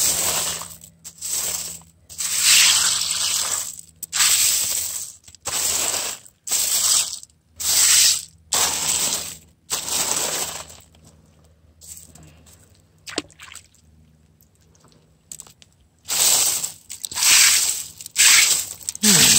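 Wet gravel and pebbles being raked and rubbed by hand across a wire-mesh sifting screen, a string of short scraping strokes about one a second, with a pause of a few seconds about two-thirds of the way through before the strokes resume.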